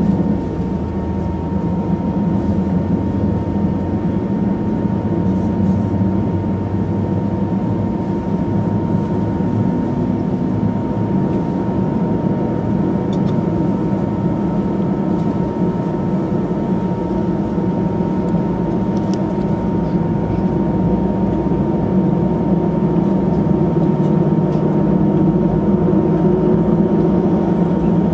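Airbus airliner's jet engines idling as it taxis, heard inside the cabin: a steady low rumble and hum with a steady high whine over it.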